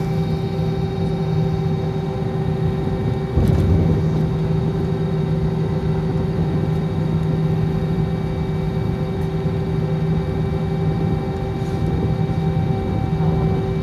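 Jet airliner cabin noise while taxiing: a steady engine drone with several fixed humming tones, heard from inside the cabin. A low thump comes about three and a half seconds in.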